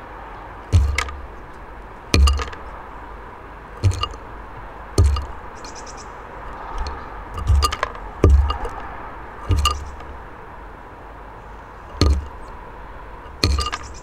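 Hawfinch feeding from a terracotta dish on a wooden bird feeder: sharp knocks and cracks from its bill on seeds and the dish, each with a dull thud through the feeder, about nine in all at uneven gaps of one to two seconds.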